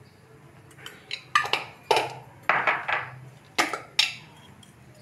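A metal spoon clinking and knocking against dishes as spices are spooned out: about seven sharp clinks in an irregular run from about a second in to four seconds in.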